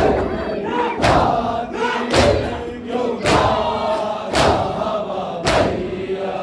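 Men chanting a noha together while beating their chests in matam, a sharp hand-on-chest slap struck in unison about once a second.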